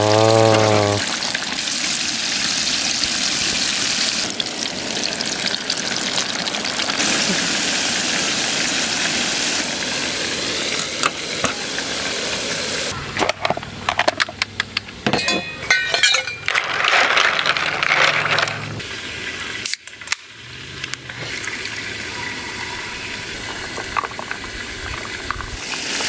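Chicken deep-frying in oil at about 170 °C, a steady sizzling hiss. About halfway through there is a stretch of clicks and knocks over the sizzle, and after a sudden break the sizzle goes on more quietly.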